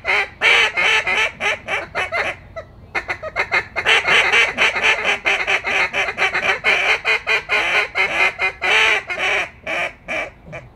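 Hand-blown duck call worked in fast runs of loud quacks and chatter, with a brief pause about two and a half seconds in, the notes thinning out near the end.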